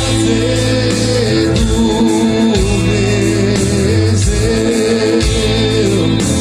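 Live rock band playing at full volume: guitars, bass and drums, with a sustained lead melody that wavers in pitch over the top.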